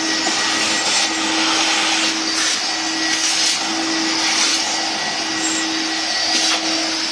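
Vacuum cleaner running steadily with a constant hum, its hose nozzle sucking lint and dust off a tumble dryer's drive motor.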